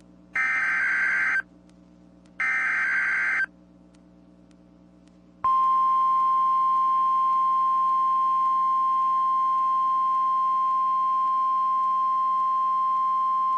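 NOAA Weather Radio EAS alert: two roughly one-second bursts of the SAME digital header's data warble, a second apart, then after a two-second gap the 1050 Hz warning alarm tone comes on as a single steady high tone. Together they announce a severe thunderstorm warning.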